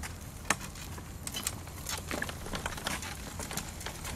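An electric wheelchair's tyres rolling over a rough, gritty road, with irregular small crackles and crunches of grit.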